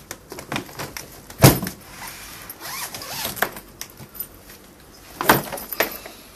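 A heavily loaded hard-shell suitcase laid down on a carpeted floor with a heavy thump about a second and a half in, then handled and opened with rattling of its fittings and a second thump near the end as the lid falls open.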